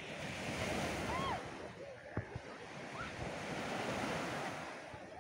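Small sea waves breaking and washing up on a sandy shore, the surf swelling and easing in slow surges.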